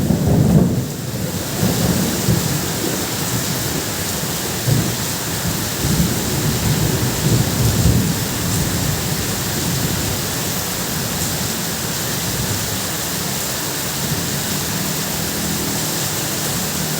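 Heavy rain falling steadily on a tin roof, with low thunder rumbling through the first half and fading away.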